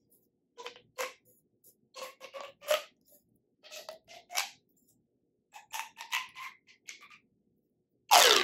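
Pop tube fidget toys, ribbed plastic tubes, being stretched and squashed: clusters of short zipping pops with a ringing pitch. A much louder pop near the end slides down in pitch.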